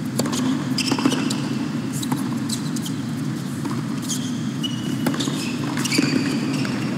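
Tennis rally on a hard court: sharp racket strikes on the ball a second or two apart and short squeaks of tennis shoes on the court, over the steady hum of the arena.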